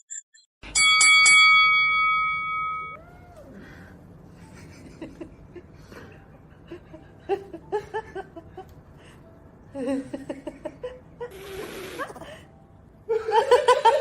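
A single bell-like ding, ringing out and fading over about two seconds.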